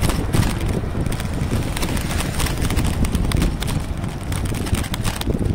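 Wind buffeting the microphone of a phone carried on a moving electric scooter: a steady low rumble broken by many scattered clicks and knocks.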